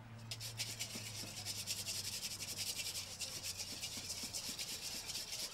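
Wire balloon whisk beating a mustard vinaigrette base against a stainless steel mixing bowl: quick, even, scraping strokes, starting just after the start.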